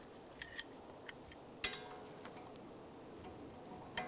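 Ratchet clicking faintly in a few separate strokes while loosening the front brake caliper bracket bolts, with a sharper click about a second and a half in and another near the end.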